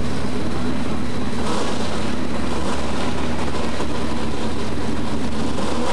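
Pro street four-wheel-drive pulling truck's engine idling steadily at the start of the track, its pitch and loudness holding even.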